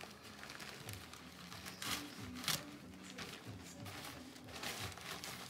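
Crinkling and rustling of wrapping being handled and pulled off a packed orchid plant, with two louder crackles about two seconds in.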